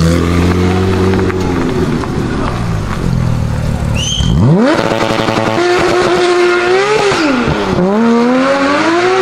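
Porsche 991 GT3 RS's naturally aspirated flat-six accelerating hard from a roll: a steady low engine note at first, then a sharp rise in revs about four seconds in. The revs climb high, drop once around seven seconds, and climb again.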